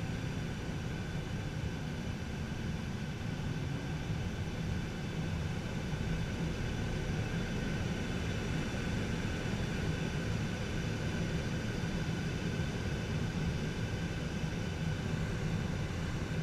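Steady rush of air inside a glider cockpit on aerotow, with the steady drone of the tow plane's engine and propeller ahead.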